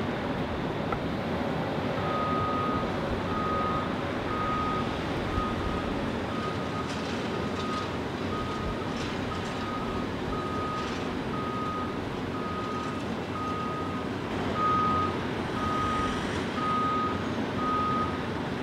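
A vehicle's reversing alarm beeping about once a second, one steady high tone, starting about two seconds in, over a steady noisy rumble.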